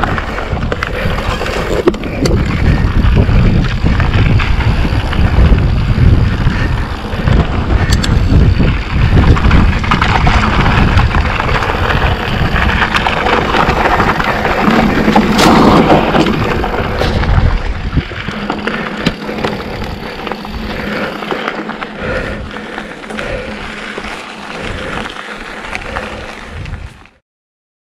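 Wind buffeting the microphone and tyres rolling over dirt on a mountain bike ride, with scattered clicks and rattles from the bike. It eases off for the last part and cuts off suddenly near the end.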